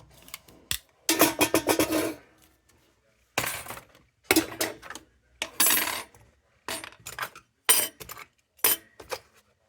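Tin lantern parts being handled and set down, with about seven separate metallic clanks and clinks, some ringing briefly.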